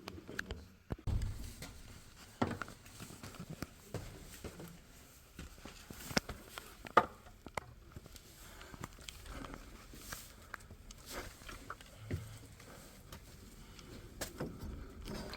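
Faint, scattered clicks and knocks, with a low thump about a second in, in a small room.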